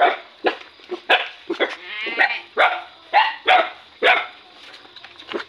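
Puppies yelping and barking in a rapid series of short, sharp calls, about ten in the first four seconds before dying down: young dogs squabbling over a shared food dish.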